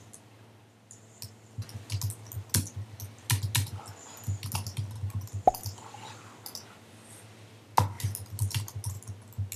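Typing on a computer keyboard: irregular clusters of keystroke clicks with a short pause, over a low steady hum.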